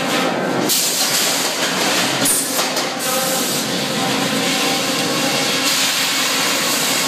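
Sawmill head rig running: a circular headsaw and its shotgun-fed carriage carrying a log through the cut, a loud steady mix of machine noise and hiss, with a brief sharp change a little over two seconds in.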